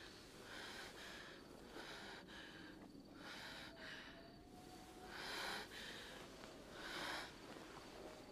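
A woman's faint breathing: a run of short, repeated breaths, with two louder breaths in the second half.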